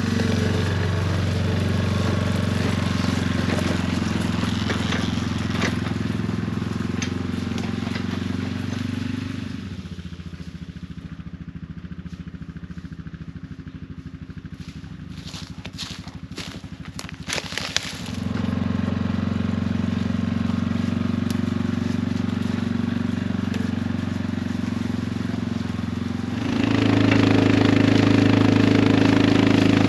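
ATV (quad) engine running steadily on the move. Midway it eases back to a lower, quieter running for several seconds, with a few sharp knocks or rattles, then picks up again and gets louder near the end.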